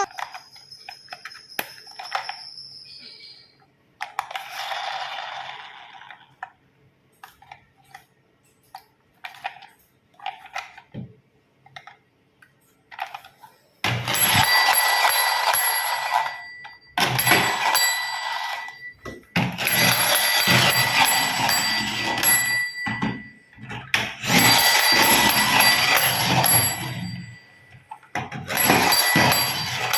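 A toy's electric bell ringing in five loud bursts of a few seconds each, starting about halfway through, after a stretch of small clicks and knocks from toys being handled.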